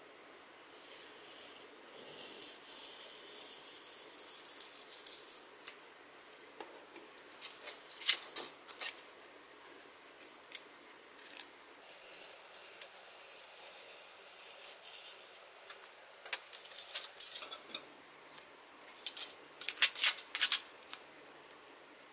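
Blade of a small wooden hand foam cutter drawn along a ruler through Depron foam sheet: scratchy scraping strokes mixed with small clicks and taps of the tool. Near the end a few loud sharp crackles.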